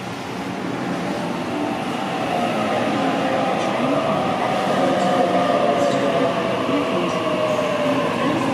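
Sydney Trains Waratah (A set) electric double-deck train running into the platform, with a rumble of wheels on rail that grows louder as the cars pass. Over it is a whine from the traction motors in several tones that slowly fall in pitch as the train slows.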